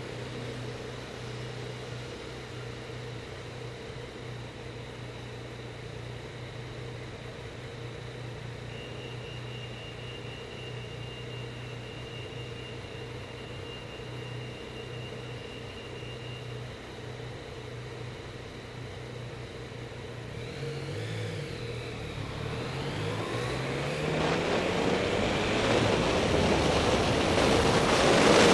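Yamaha MT-09's three-cylinder engine idling steadily, then revving up with rising pitch about two-thirds of the way through as the bike pulls away and accelerates. Wind noise on the helmet-mounted microphone builds and grows loud toward the end.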